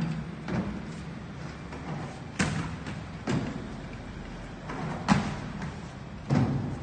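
Plastic paint buckets being handled off a truck bed and set down on a concrete floor: five or six separate thuds and knocks, irregularly spaced a second or two apart.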